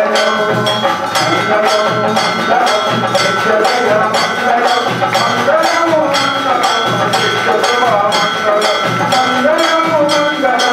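Brass temple bell rung rapidly and steadily, about four strikes a second, for the aarti lamp offering, over devotional music with a wavering melody.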